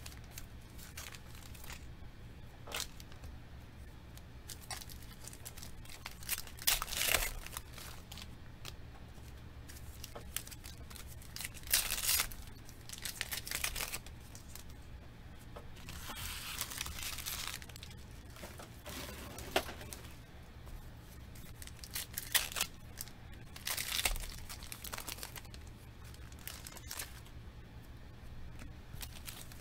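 Foil wrapper of a Panini Certified football card pack being torn and crinkled, then the cards shuffled and slid through the hands in scattered bursts of rustling, over a steady low hum.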